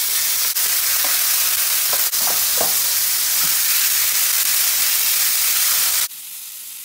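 Marinated chicken breast pieces sizzling loudly in hot oil in a grill pan as they are tipped in and pushed around with a wooden spatula, with a couple of faint knocks. About six seconds in the sizzle drops suddenly to a much quieter level.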